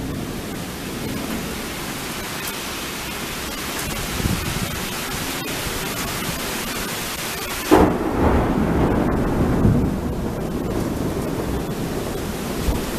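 Thunderstorm: a steady hiss, then about eight seconds in a sudden crack of thunder that rolls on as a long rumble with swells.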